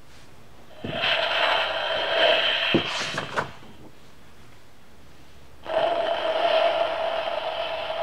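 Recorded sound effects played through the small speaker of an electronic push-button sound book, heard twice as hissy, noisy clips separated by a quiet gap, with a few sharp clicks and a scrape of the book's page being turned in between.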